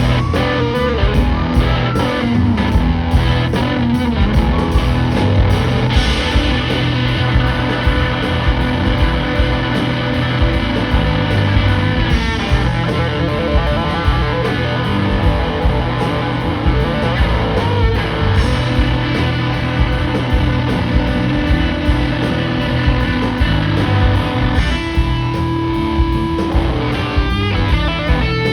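Live blues-rock band playing loud, electric guitar to the fore over a steady drum beat.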